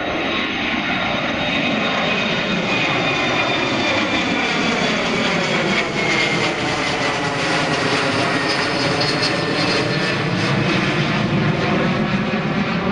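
Twin turbofan engines of an Embraer E-Jet airliner at climb power just after takeoff: a loud, steady jet roar with a high whine that slowly falls in pitch as the plane passes overhead and climbs away.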